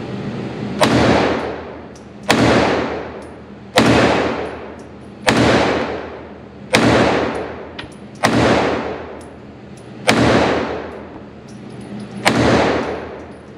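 Eight shots from a Walther CCP M2 compact pistol in .380 ACP, fired one at a time about every second and a half, the last after a slightly longer pause. Each shot is followed by a long echoing tail.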